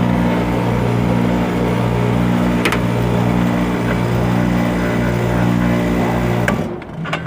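A Lennox heat pump's outdoor unit running, a steady compressor and fan hum with a low electrical buzz, during pump-down with the high-side valve closed. It shuts off abruptly about six and a half seconds in, once the refrigerant is pumped down, followed by a few light clicks.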